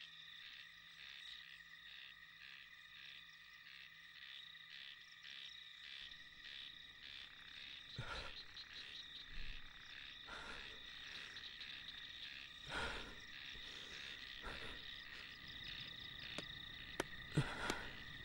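Faint night chorus of frogs and crickets, a steady pulsing chirring. From about eight seconds in, a few soft knocks sound over it.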